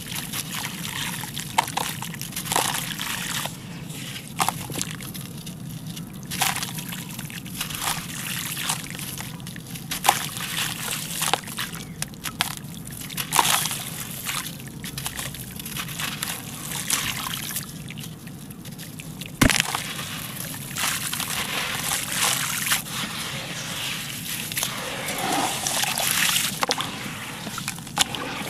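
Hands squeezing and crumbling a soft, wet gray concrete block into a basin of water: gritty crunching and crackling, with water sloshing and dribbling and pieces splashing in. One sharp click about two-thirds of the way through is the loudest sound.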